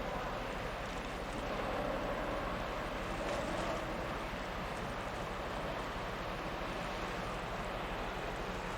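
Steady low drone of a passing container ship, with wind noise on the microphone.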